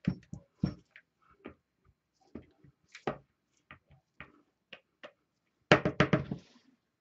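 Silicone spatula scraping and knocking against a plastic mixing bowl of soap batter: scattered light knocks, then a quick run of louder knocks about six seconds in.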